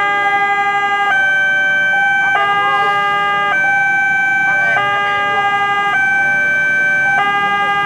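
Electronic railway level-crossing warning alarm sounding: a loud, steady two-tone signal that switches between a higher and a lower chord about every second, warning that a train is approaching while the crossing is closed.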